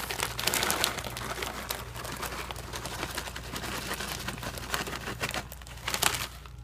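Plastic crouton bag crinkling as it is shaken, with croutons tumbling out into a slow cooker of soup; many small irregular crackles, with a louder rustle about six seconds in.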